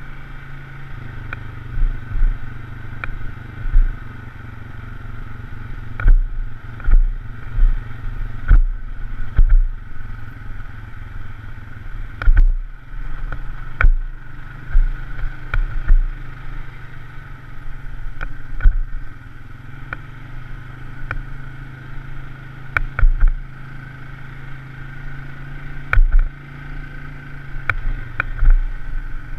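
Polaris RZR side-by-side engine running steadily underway, with repeated sharp knocks and low thuds every second or two as the machine jolts along.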